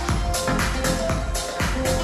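Background music: an electronic pop song with a steady, even dance beat.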